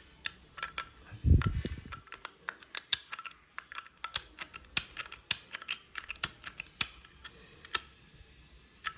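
Irregular sharp clicks and taps of small metal lighters being handled and set down, with a dull low thump about a second in.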